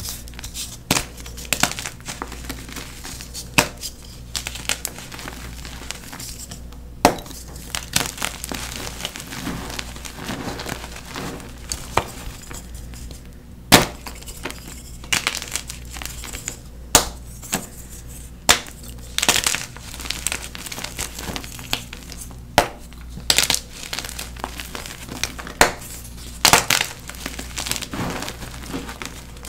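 Halves of blue-dyed NEXO gym chalk blocks being crumbled and broken by hand: irregular sharp cracks and snaps, about a dozen loud ones, over a continuous soft crunching and crumbling of the chalk.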